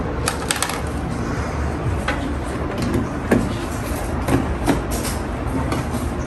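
Scattered plastic clicks and knocks of a red cordless vacuum's battery and attachments being handled and fitted, over a steady low background rumble.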